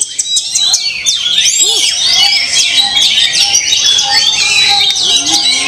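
Many caged songbirds singing at once in a dense, loud chorus of overlapping chirps, rapid trills and whistled glides.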